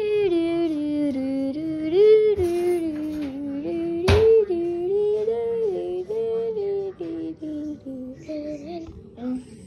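A girl singing a slow melody, holding and stepping between notes, with a sharp knock about four seconds in.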